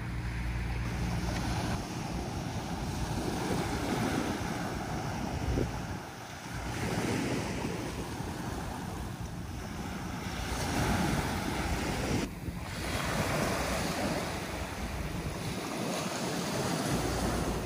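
Sea waves washing on the shore, with wind rumbling on the microphone. The noise swells and eases and changes abruptly about six and twelve seconds in.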